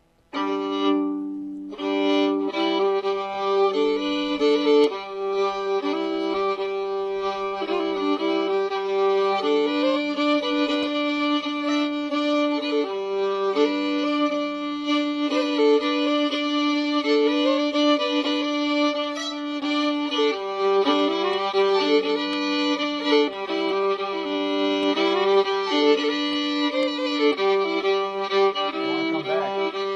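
Old-time fiddle tune starting about half a second in: a bowed fiddle melody played over steady droning notes.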